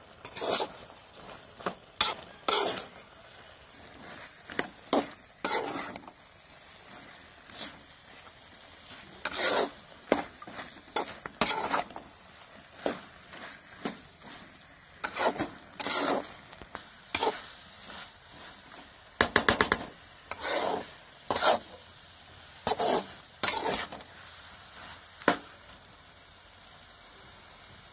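A spatula stirring and scraping spice-coated chicken around a large metal kadai in irregular strokes, over a faint sizzle from the pan. About two-thirds through there is a quick rattle of rapid strokes, and the stirring stops shortly before the end.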